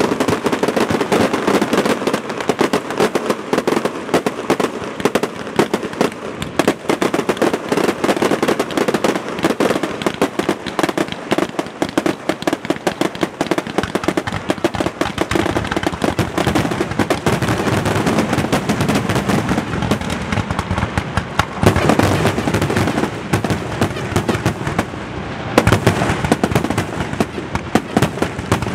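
Fireworks finale barrage: aerial shells bursting in dense, rapid succession with continuous crackling and booms. About 25 seconds in, a short lull is followed by heavier booms.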